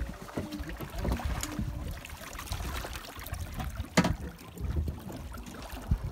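A roped halibut splashing and thrashing in the water against the side of the boat, with two sharp splashing hits, about four seconds in and near the end, over a steady low rumble.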